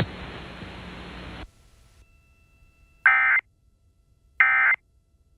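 Radio hiss for about a second and a half, fading to quiet. Then two short, loud EAS digital data bursts about 1.3 s apart: the end-of-message code that closes the weather alert.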